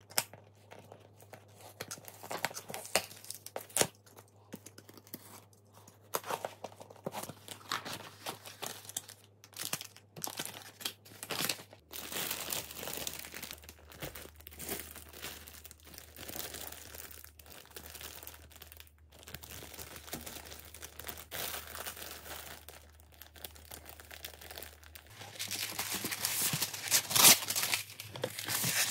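Packaging being crinkled and torn by hand, in irregular rustling bursts with scattered clicks and knocks, busiest and loudest near the end.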